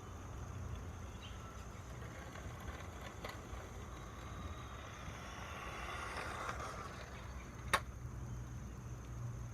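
Remote-control toy Lamborghini driving slowly: a faint motor-and-wheel hiss that swells about six seconds in, with a steady low rumble underneath and one sharp click near the end.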